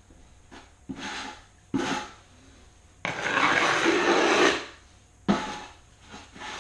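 Metal scraper blade scraping excess mortar off the floor tile along the base of the wall: two short scrapes, then one long scrape of about a second and a half, and a sharper stroke about five seconds in.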